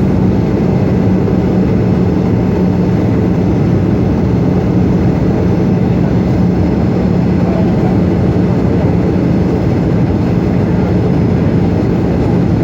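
Steady cabin noise inside a Boeing 757-200 airliner: engine and airflow rumble with a constant low hum.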